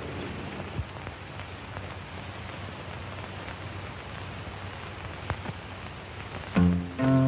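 Steady hiss of an old film soundtrack with a few faint clicks. About six and a half seconds in, an acoustic guitar starts strumming chords, the loudest sound here.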